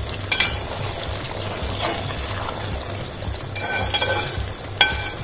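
Chicken curry bubbling in a large metal pot while a metal ladle stirs through it, with two sharp clinks of the ladle against the pot, about a third of a second in and near the end.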